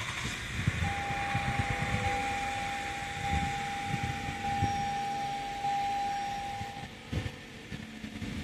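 Lexus ES 350's 3.5-litre V6 started and running at idle after a fresh oil and filter change, heard from inside the cabin. A steady high tone sounds over it from about a second in for some six seconds.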